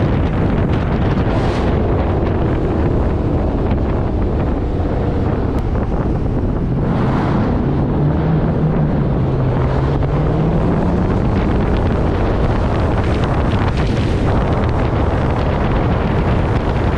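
Steady rush of wind over a camera mounted on the hood of a moving black Dodge Charger, with the car's low engine note underneath that dips and then climbs again about halfway through.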